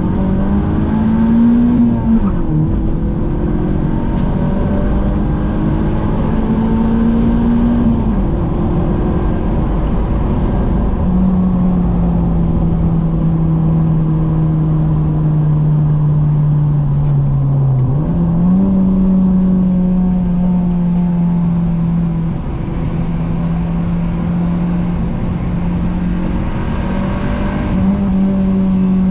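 Honda H-series four-cylinder engine pulling through the gears: its note climbs and drops sharply at a shift twice, then settles to a steady cruise, stepping up in pitch once near the end, over steady road noise.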